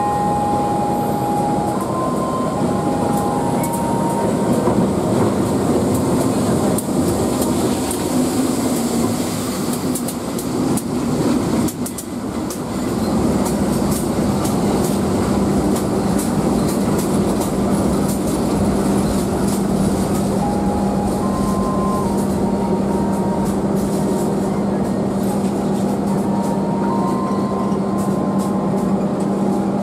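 Diesel-locomotive-hauled passenger train rolling slowly past on the adjacent track, its coaches running by close at hand with the wheels clicking over the rail joints. A steady low hum sets in about 13 seconds in.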